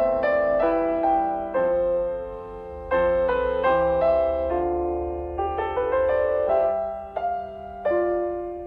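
Background music: a slow piano melody of single struck notes, each ringing out and fading, over soft sustained low notes.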